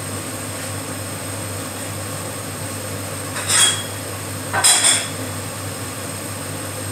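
Crockery clattering twice, about a second apart, as dishes are handled, the first clink ringing briefly. A steady low hum runs underneath.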